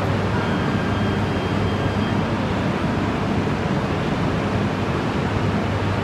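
E3 series Shinkansen creeping forward at walking pace to couple with a waiting E2 set, giving a steady rumble and hiss with a constant low hum.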